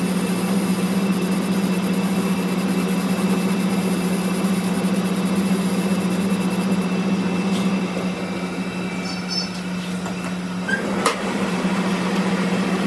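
A machine running with a steady low hum and noise above it, easing slightly past the middle, with a single brief knock near the end.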